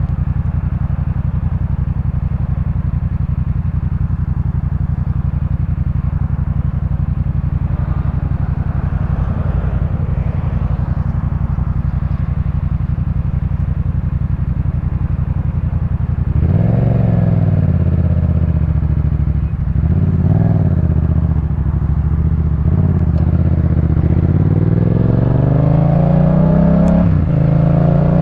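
2018 Yamaha MT-07's parallel-twin running through a Jeskap K4 full exhaust system, idling steadily for about sixteen seconds. It then revs up and pulls away, accelerating through several gears with rising revs and sudden drops at each shift.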